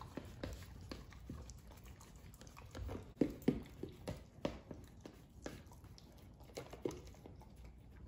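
Welsh corgi eating from a plastic slow-feeder bowl: irregular chewing with sharp clicks and knocks of its muzzle and food against the bowl, loudest a little before the middle.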